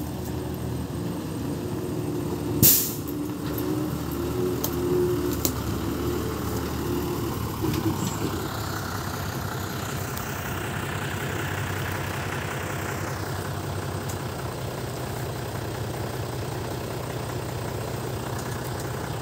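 Heavy diesel earthmoving machinery at work: an excavator working with a dump truck. A steady engine note runs throughout. There is one loud, sharp bang or burst about three seconds in, followed by a few lighter clanks. From about halfway, a hiss rises and then falls in pitch over the running engine.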